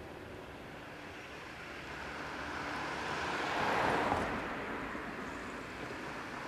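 Odakyu Type 3000 and Type 5000 electric commuter train passing close by, its wheels rolling on the rails. The sound rises to a peak about four seconds in as the train goes by, then fades.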